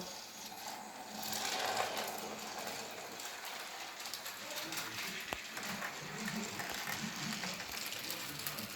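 Small battery-powered toy train's motor and plastic gears whirring steadily, with faint rattling, and a single click about five seconds in.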